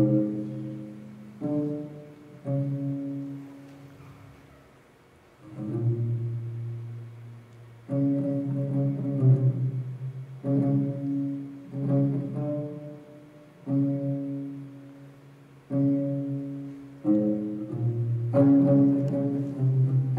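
Live music on a low-pitched string instrument, playing slow phrases of a few notes with short pauses between them. The music nearly drops out about four seconds in, and the playing grows busier near the end.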